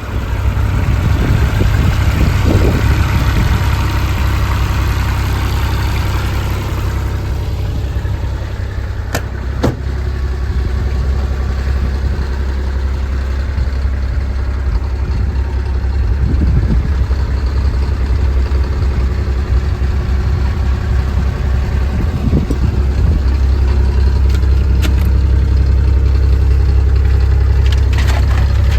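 Diesel engine of a JCB 8018 mini excavator running at a steady idle. A higher hiss over it dies away about seven seconds in, and there are a few sharp clicks or knocks near the ten-second mark and near the end.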